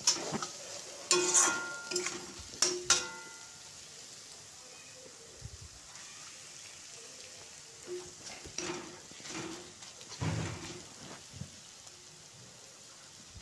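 Onion and spice masala sizzling in oil in a pan, with a spatula scraping and knocking against the pan several times in the first three seconds and again from about eight to eleven seconds in.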